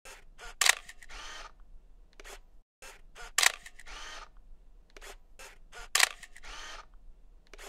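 Camera shutter clicking three times, about two and a half seconds apart, each loud click among lighter clicks and followed by a short whir.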